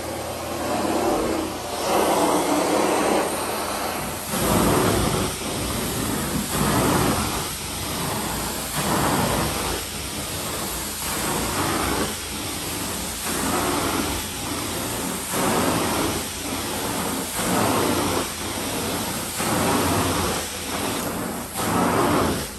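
Carpet-cleaning equipment running steadily, its sound swelling and easing about every two seconds in time with passes across the carpet.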